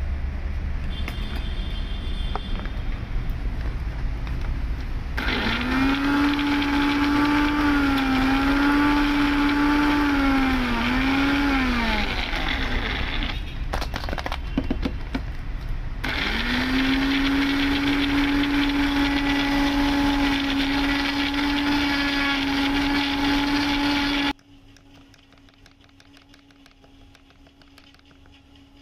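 Electric mixer-grinder blending a pineapple shake of ice, cashews and cream: the motor runs in two spells of several seconds, its whine wavering in pitch in the first and steadier in the second, with a short pause and a few clatters between them. The sound cuts off abruptly near the end.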